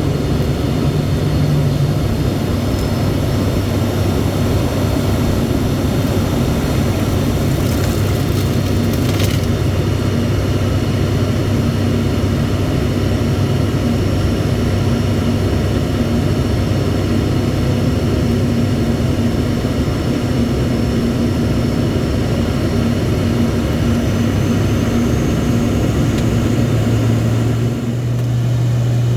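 ATR72 twin-turboprop engines and propellers droning steadily in flight. The low propeller tone steps up in pitch near the end.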